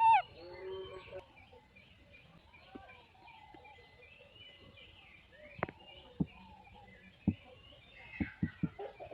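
Chirping and squeaking animal calls, with one loud falling squeal right at the start. A few sharp clicks or taps come in the second half.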